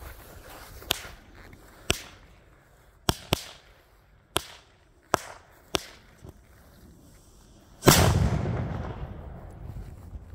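A Knallfrosch (jumping jack firecracker) going off in a string of about seven sharp cracks over some five seconds. It sets off the 150 g Italian Cipolla firecracker, which goes off about eight seconds in with one much louder blast that fades out over about two seconds.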